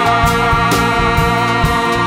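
Live rock band playing: electric guitars holding long notes over a steady beat of drums and cymbals.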